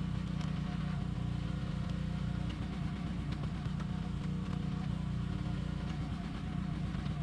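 An engine running steadily at an even, low speed.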